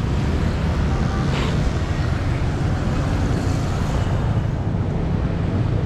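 Steady low rumble of street traffic, with wind on the microphone.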